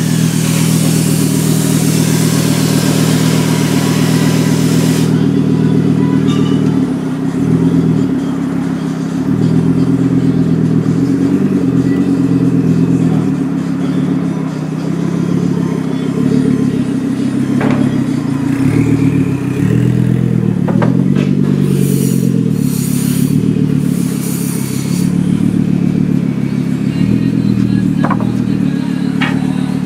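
Volvo S70 T5's turbocharged inline-five running loud and raspy through an open downpipe with no exhaust behind the turbo, idling as the car creeps along, its pitch dipping and rising with small throttle changes a few times. A high hiss sits over it for the first few seconds, and a couple of sharp clicks come near the middle and end.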